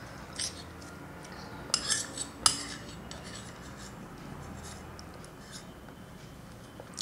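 Metal spoon clinking and scraping against a small bowl while cutting rosogolla in syrup. There are a few sharp clinks, the loudest about two and a half seconds in, then lighter taps.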